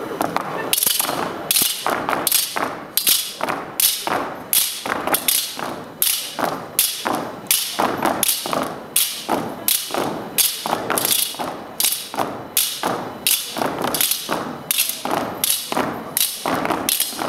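Step team stepping in unison: boot stomps and machetes struck together in a steady rhythm of sharp strikes, about two a second.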